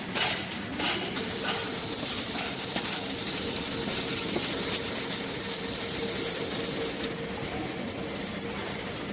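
Elevator guide rail planer running: a steady mechanical clatter with scattered clicks and knocks and a high whine that stops about seven seconds in.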